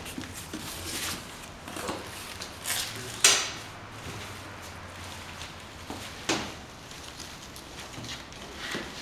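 Scattered knocks, clunks and rustling from parts and packaging being handled and set down on a steel worktable, with the sharpest knock a little over three seconds in and another just past six seconds.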